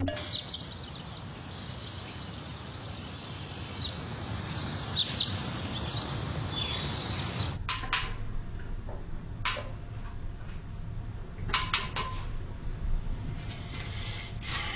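Background noise with a few faint bird chirps, then several sharp clicks or knocks in the second half.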